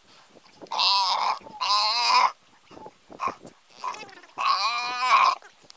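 Cape buffalo bawling in distress while pinned down by lions: three long, loud, wavering calls, with a couple of short ones between the second and third.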